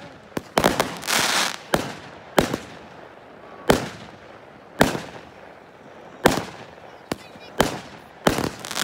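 Aerial firework shells bursting overhead: about a dozen sharp bangs at uneven intervals, each trailing off in a short echo, with a burst of crackling about a second in.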